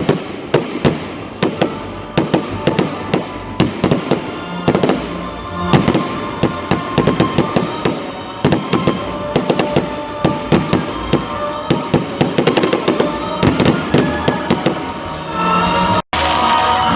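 Fireworks display: a rapid, continuous run of bangs and crackling pops, several a second. The sound cuts out for an instant near the end.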